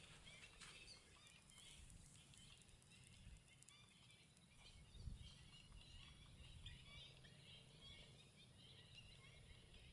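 Faint, distant chatter of many birds calling at once, small overlapping chirps, over a low steady rumble.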